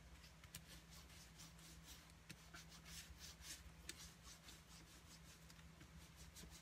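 Faint, irregular rubbing of a foam brayer rolled back and forth over embossed cardstock, over a low steady hum.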